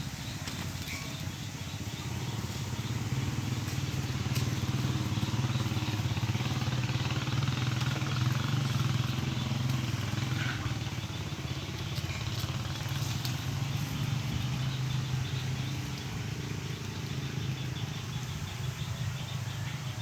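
A motor engine running steadily, its low hum growing louder a few seconds in and then slowly easing off.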